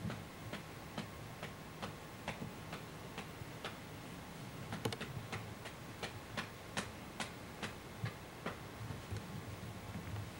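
Steady, regular ticking, a little over two ticks a second, over a low rumble.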